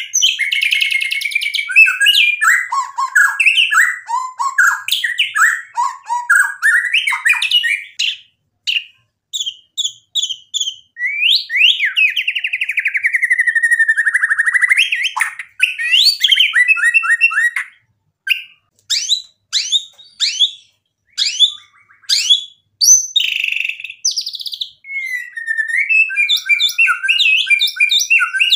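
Male white-rumped shama singing in full song: a varied run of whistles, trills and quick sharp notes, with a long note sliding downward about eleven seconds in and short pauses between phrases.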